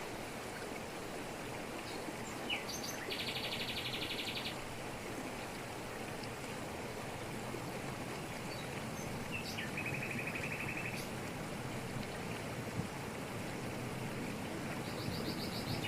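Waterfall rushing steadily over rocks, with birds calling: a fast trill about three seconds in, a shorter, lower trill near the middle, and scattered chirps, with a quick series of high chirps near the end.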